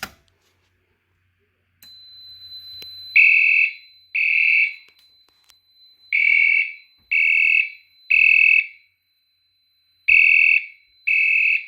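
Fire alarm horn strobe sounding the temporal-3 evacuation pattern after a manual pull station is activated: sets of three short horn blasts with a pause between sets, beginning about three seconds in. A steady high-pitched tone sounds underneath from about two seconds in.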